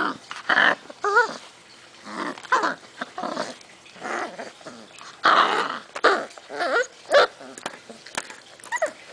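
Six-week-old basset hound puppies play-fighting: a rapid string of short growls, yips and whines.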